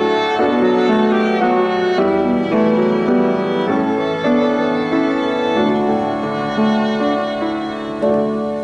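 Violin and grand piano playing a slow hymn arrangement: the violin holds long notes with vibrato over piano chords. A piano chord struck near the end rings on and begins to fade.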